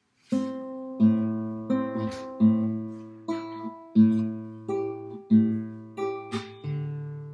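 Classical guitar played fingerstyle: plucked chords over ringing bass notes at a steady, unhurried pulse, beginning after a short silence.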